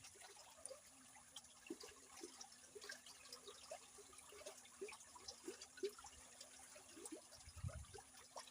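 Faint trickling, gurgling water with many small scattered drips and bubbles, over a faint steady hum; a brief low rumble comes near the end.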